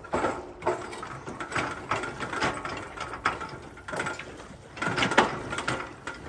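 Metal boat lift frame creaking and scraping as a steel pipe pries and shoves it along the shore, in repeated grinding surges about once a second, with the loudest push about five seconds in.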